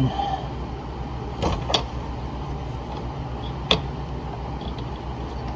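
A few sharp clicks and knocks of hand work on a fastener while the fuel filter's mounting is secured, over a steady low hum.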